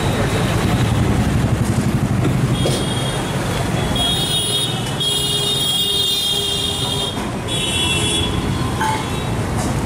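Busy road traffic: engines running with a steady low rumble, and several high-pitched vehicle horns honking in the middle, one held for a couple of seconds.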